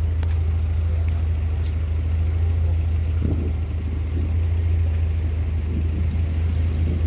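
A vehicle engine running at a steady idle, heard as an even, unbroken low hum.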